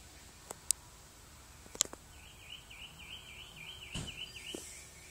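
Quiet outdoor background with a few sharp clicks, then a high, wavering trill about two seconds in that breaks into short repeated notes, and a dull thump near the end.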